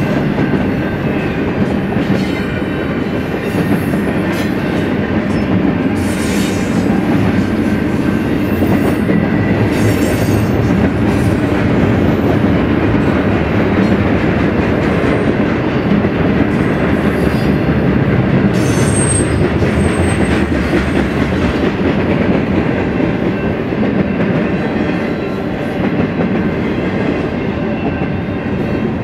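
A long BNSF freight train rolling steadily past at close range: a loud wheel rumble with clickety-clack over the rail joints, and a brief high squeal of wheel on rail about two-thirds of the way through.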